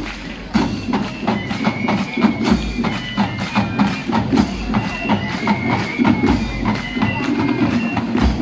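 A Sri Lankan school Eastern band playing in procession: many drums beating quick, dense strokes under a high wind melody. The drums drop back for a moment at the start, then come in again about half a second in.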